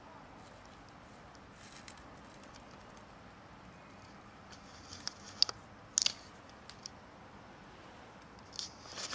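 A cat chewing its food: a few sharp crunches and clicks, loudest about five to six seconds in, with another short crunching rustle near the end.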